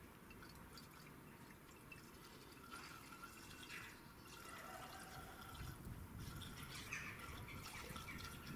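Faint trickle of liquid poured from a plastic jug through a funnel into a chainsaw's tank, a little louder in the second half; the tank is being filled to see whether it leaks from underneath.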